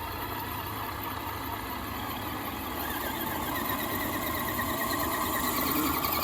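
Axial SCX10 RC crawler's electric motor and gear drivetrain whining as it drives, the whine growing louder about halfway through.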